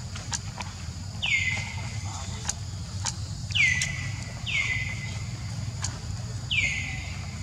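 Animal calls: four high calls, each dropping quickly in pitch and trailing off, spaced one to two seconds apart. A steady high insect buzz and a low hum run underneath, with scattered sharp ticks.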